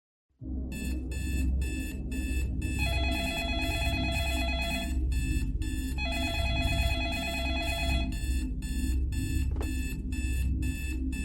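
Instrumental opening of a Latin pop track starting after a brief silence: a bright, bell-like figure repeats in quick even pulses, with two longer held chords, over a steady bass line.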